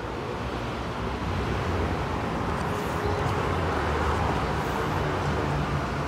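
Steady low rumble with a low hum, a little louder after about a second.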